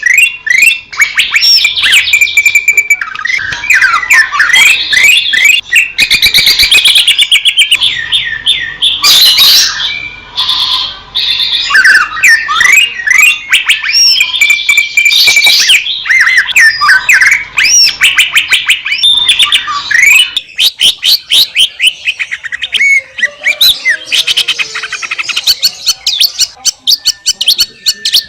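Green leafbird (cucak ijo) singing a loud, fast, varied song of sweeping whistles, chattering trills and rapid clicking note runs, without pause.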